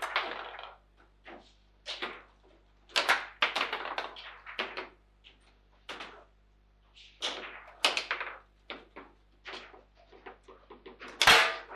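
Table football in play: irregular sharp clacks of the ball being struck by the figures and the rods knocking as they are spun and slid. Near the end comes the loudest bang, a hard shot slamming into the goal.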